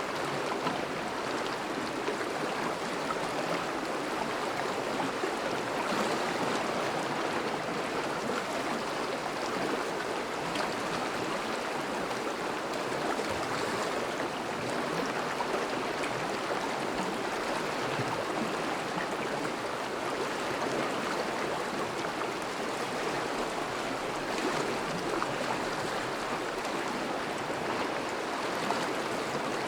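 Thawing river flowing steadily over and around ice, a continuous even rush of moving water.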